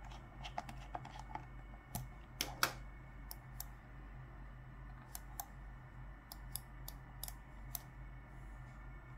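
Scattered light clicks and taps from a Logitech MX Master mouse being handled, at irregular spacing, the loudest pair about two and a half seconds in, over a steady low electrical hum.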